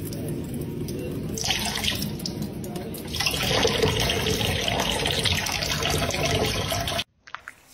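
Kitchen tap running in a thin stream that falls over a cat's head and splashes into the sink, the splashing louder from about three seconds in and cutting off suddenly near the end.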